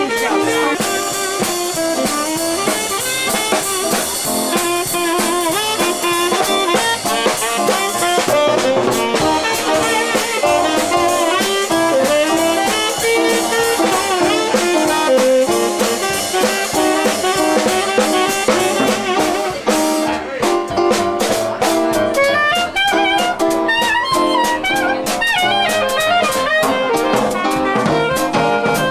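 Live jazz band playing, with a saxophone lead over drums. From about twenty seconds in, sharper percussion hits stand out in a steady rhythm.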